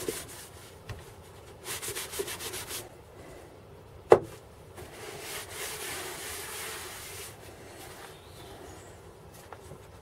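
Cloth rag rubbing oil onto an oak box in two spells of strokes, the second longer. A single sharp knock about four seconds in.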